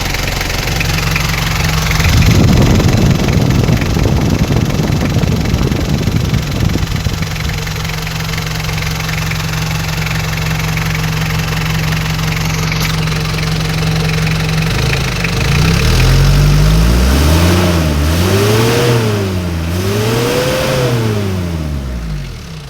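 Isuzu Panther 2.3-litre diesel engine idling with a steady clatter. About two seconds in it grows louder and more rattly for several seconds. Near the end it is revved up and let fall back to idle twice.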